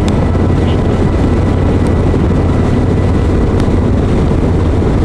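Harley-Davidson V-twin motorcycle cruising at a steady speed: a steady, low engine drone with road and wind noise.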